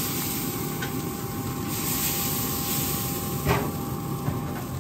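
Pellet grill running with its lid open: a steady rumble and hiss from its fan and fire, with a faint steady whine. A light knock about three and a half seconds in.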